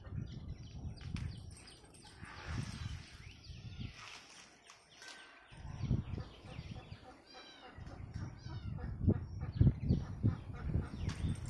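Short, high chirping animal calls, repeated many times, over an uneven low rumble on the microphone.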